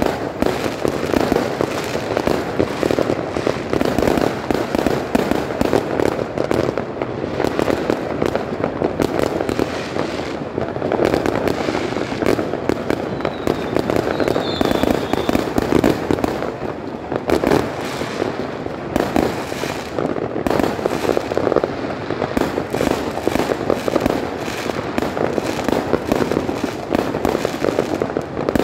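Fireworks going off in a dense, continuous barrage of rapid bangs and crackling.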